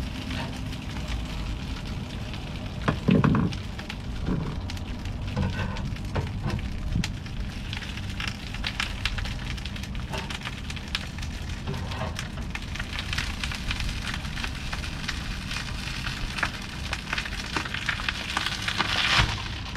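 Steady crackling and popping of the foam bedding under a boat's fuel tank giving way as a scissor jack slowly lifts the tank, with rain pattering throughout. A louder knock comes about three seconds in and another louder burst near the end.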